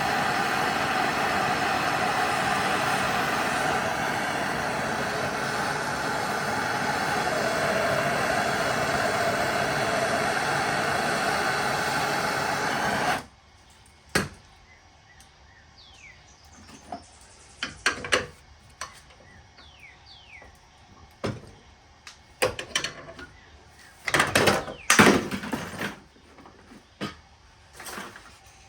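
A loud, steady rushing noise cuts off suddenly about 13 seconds in. After that come scattered knocks and clinks of metal parts being handled, and a few bird chirps.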